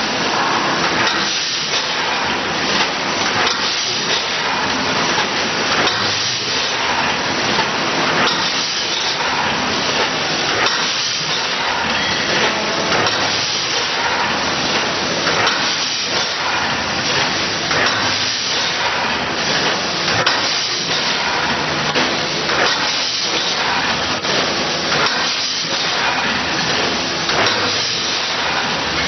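Packaging machine running: a steady hiss with a faint, uneven mechanical clatter through it.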